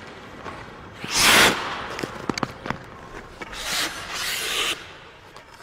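Ice-skate blades scraping across the ice in three hissing sweeps, the loudest about a second in, with a few sharp clicks in between.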